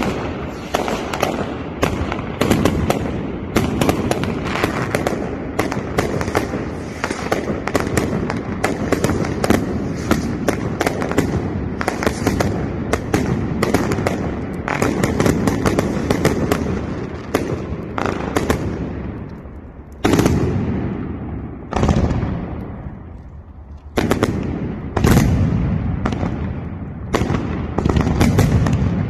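Aerial fireworks launching and bursting overhead in a rapid, continuous crackle of shots. In the second half a few louder separate bangs stand out, each dying away before the rapid shots resume.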